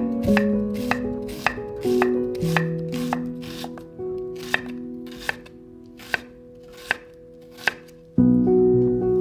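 Chef's knife dicing an onion on a wooden cutting board, the blade clicking down onto the board in a steady rhythm, about two chops a second at first, then more spaced out, a little over one a second. Soft background music with plucked, piano-like notes plays underneath and grows louder near the end.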